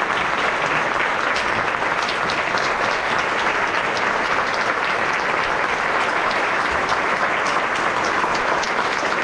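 Theatre audience applauding steadily, a dense mass of hand claps, as the cast takes its curtain-call bow at the end of a play.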